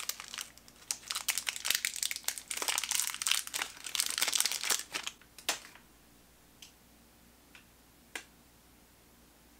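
Shiny foil wrapper of a Funko mini-figure blind packet crinkling and being torn open by hand, a dense crackle lasting about five and a half seconds. A few faint clicks follow.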